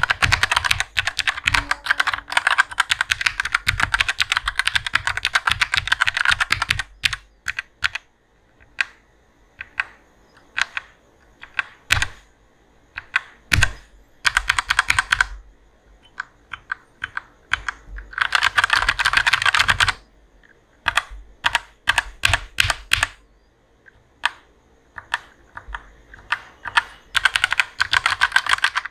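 Typing on an HK Gaming GK61 60% mechanical keyboard with Gateron optical brown (tactile) switches. Rapid runs of keystrokes for the first seven seconds, then single key presses and short runs, with further quick bursts in the middle and near the end.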